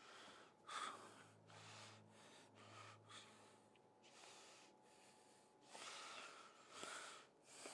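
Near silence with a man's soft breaths, several short puffs close to a lapel microphone.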